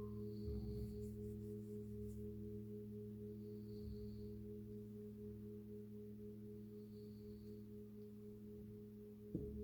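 Several Himalayan singing bowls ringing together in long, steady overlapping tones, some an octave apart, slowly fading as the rims are rubbed. A bowl is struck just before the end, and the sound swells again.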